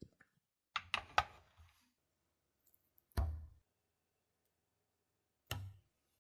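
A metal taiyaki mold knocking and clicking against a gas stove's grate as it is handled: a quick run of three sharp clicks about a second in, then two single knocks with a dull thud, one about halfway and one near the end.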